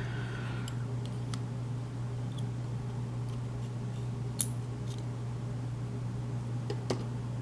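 A few small, sharp metallic clicks and a brief light scrape as tiny lock pins and springs are handled while a pin-tumbler lock is taken apart. The clearest click comes about four and a half seconds in, over a steady low hum.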